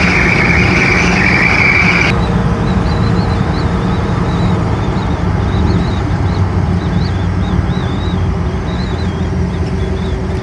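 Inside the cabin of a 1956 Chevrolet cruising on the interstate at highway speed: a steady drone of engine, wind and tyre noise. A high whistle cuts off suddenly about two seconds in.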